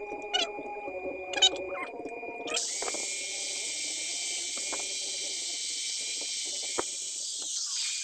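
Electric angle grinder grinding a small stainless steel piece: a steady high hiss and whine that starts suddenly about two and a half seconds in and begins to die away near the end. Before it, a few light metal clicks.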